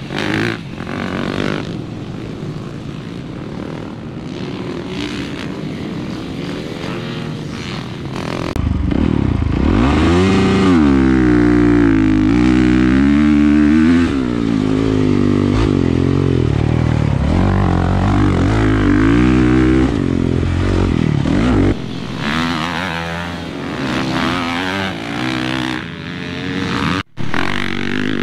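Motocross dirt bike engines running on a dirt track. From about eight seconds in to about twenty-two seconds it becomes louder and closer: the 2017 Honda CRF450R's single-cylinder four-stroke engine heard on the bike itself, its revs rising and falling repeatedly.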